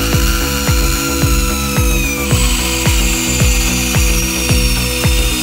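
Background music with a fast steady beat, over the high whine of a compact metal-cutting band saw cutting a steel plate; the whine slowly drops in pitch and grows harsher about two seconds in as the blade bites.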